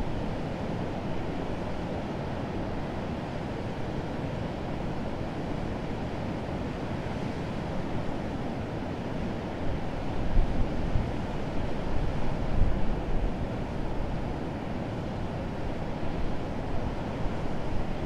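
Urriðafoss waterfall: a steady, low rush of heavy water pouring over rock ledges. Gusts of wind buffet the microphone from about ten seconds in.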